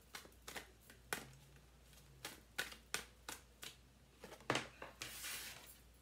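A tarot deck being shuffled by hand: soft, irregular card flicks and snaps. Near the end a card is drawn from the deck and slid onto the table.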